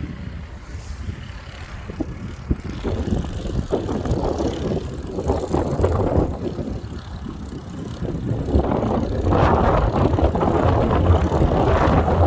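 Blizzard wind buffeting the microphone in uneven gusts, growing stronger about two-thirds of the way through.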